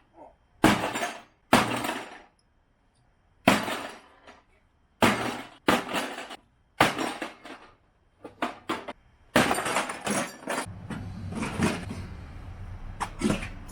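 A microwave oven being smashed: about a dozen heavy blows, irregularly spaced, with glass breaking and metal clattering. The blows come faster near the end over a rough continuous rattle.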